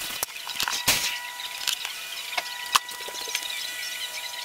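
Clicks and clanks of a small RC helicopter's plastic and metal frame parts being handled and set down on a workbench, with several separate sharp knocks, the loudest about a second in and another a little before three seconds.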